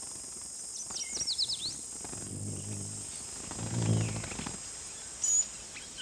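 Tropical forest ambience: a steady high insect chorus, with a bird giving a quick run of about five falling chirps about a second in. Two soft low hums rise and fade around the middle.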